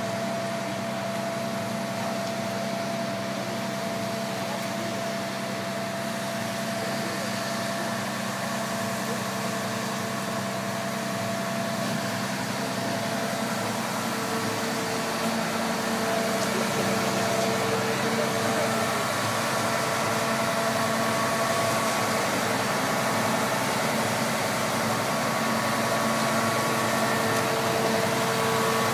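Heavy diesel truck engines of a concrete pump truck and cement mixer truck running steadily, a little louder from about halfway through.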